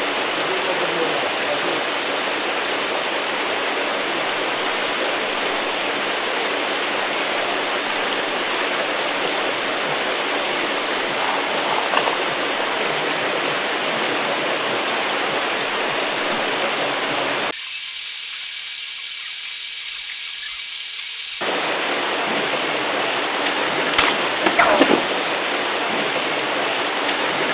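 Steady rushing splash of pond aerators churning the water. For a few seconds past the middle it turns thin and hissy, and near the end a few sharp knocks sound.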